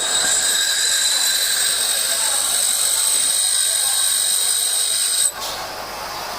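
HSS lathe tool bit held against a grinding wheel: a steady, high-pitched hiss with a whine that cuts off suddenly about five seconds in as the bit comes off the wheel.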